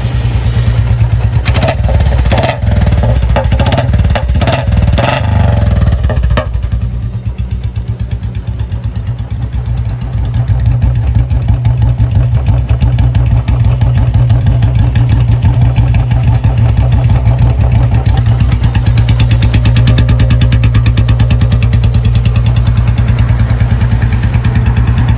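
Royal Enfield Bullet 350 single-cylinder engine with a free-flow short-bottle silencer, started and blipped sharply several times in the first six seconds, then settling into a steady, even idle.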